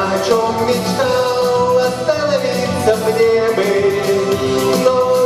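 A man singing the chorus of a Russian pop song over full instrumental accompaniment, with long held notes.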